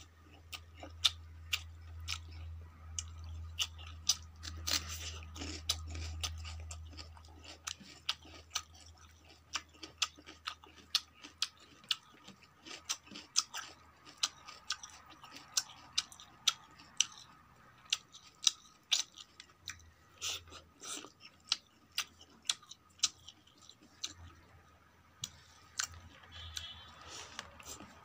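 Close-miked chewing of a mouthful of rice and vegetables, with frequent sharp wet mouth clicks, roughly two a second, and fingers mixing rice on a steel plate. A low hum underneath fades out about ten seconds in.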